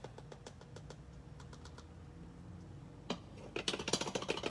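Light taps and scrapes of a tablespoon against a plastic bottle as reactive dye powder is spooned in. About three seconds in comes a quicker, louder run of small clicks and rattles.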